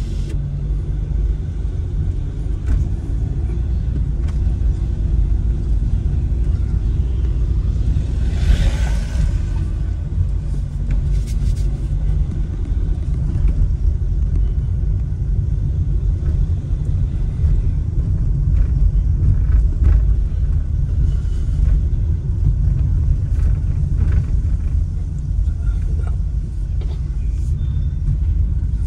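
Steady low rumble of a road vehicle on the move, with a brief hiss about eight and a half seconds in.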